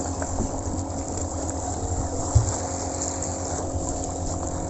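An engine runs steadily with a low drone, and there is a single short knock a little past halfway.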